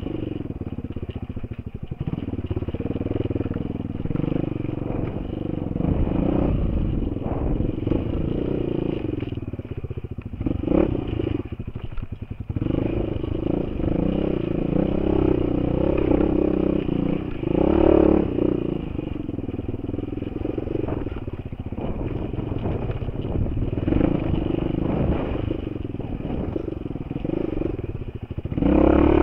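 Off-road enduro motorcycle engine heard from the rider's helmet camera, revving up and easing off as the bike is ridden over a rocky dirt track, with a couple of brief throttle-offs partway through.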